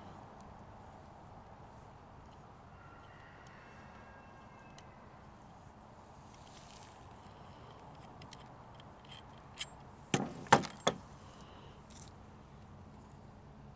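Mossberg 500 pump shotgun being taken down, its barrel and choke removed: small scattered clicks of metal parts, then a quick run of four sharp clacks about ten seconds in.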